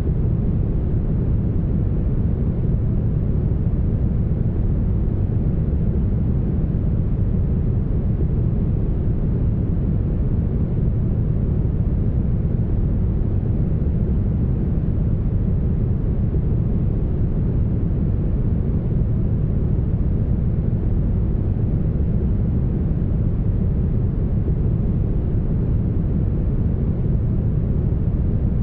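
Steady, smoothed brown noise: an even, deep rumble with almost no highs and no change in level.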